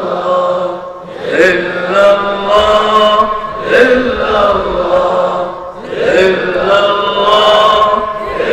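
A man's voice chanting Islamic devotional phrases in long, drawn-out melodic lines, with short breaks for breath between phrases.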